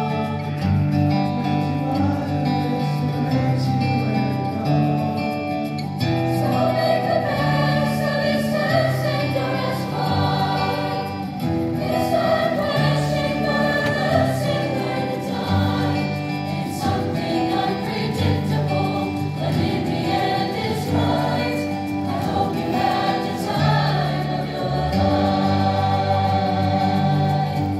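A large mixed high school choir singing in harmony, with long held notes that change chord every second or two.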